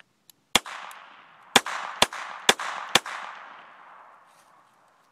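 Five shots from a North American Arms mini revolver in .22 Long Rifle. One shot comes first, then after about a second four more follow about half a second apart, each with an echo that trails off.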